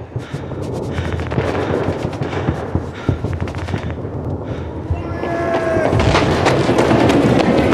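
Battlefield sound effects: a dense crackle of rifle and machine-gun fire with heavier artillery shots, getting louder about five seconds in.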